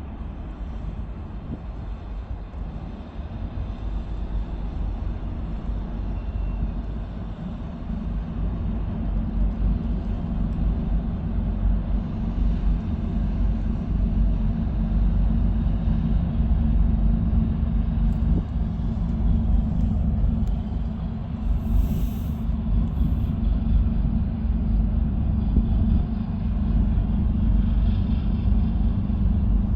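A steady low rumble that grows louder about eight seconds in, with a brief high hiss a little past the middle.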